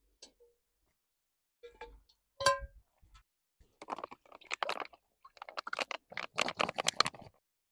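A single ringing metal clank about two and a half seconds in, as the lid comes off the cast-iron Dutch oven. Then cooking oil glugs and gurgles out of a plastic bottle into the pot in two pours.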